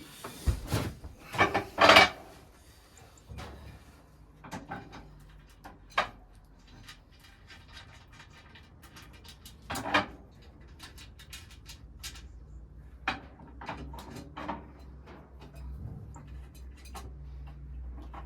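Scattered metallic clinks, taps and knocks of a small stove and its fittings being handled, with a louder clatter about two seconds in. A faint low hum runs underneath from about four seconds.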